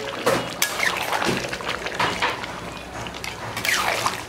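Mutton curry being worked in a pot: irregular clinks and scrapes of a metal utensil against the pot, with wet sloshing of the spiced liquid.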